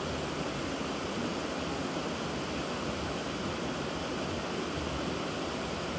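Steady rush of water pouring over a river weir, an even, unbroken noise.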